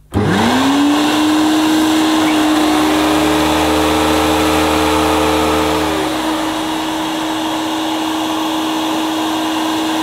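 Hoover Celebrity canister vacuum switched on, its motor spinning up within a moment to a steady whine over rushing air. From about two and a half seconds to six seconds in, the power nozzle's brush roll runs as well, adding a second, higher whine and a low hum, then stops.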